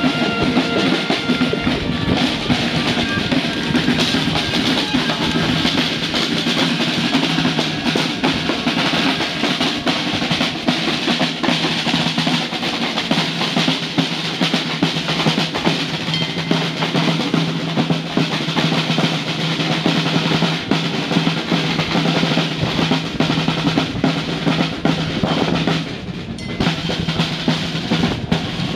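Marching drums beating a parade rhythm, snare and bass drum with rolls, over a steady low held note that breaks off near the end.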